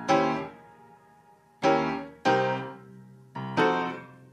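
Background piano music: slow chords, each struck and left to ring and fade, four of them in a few seconds.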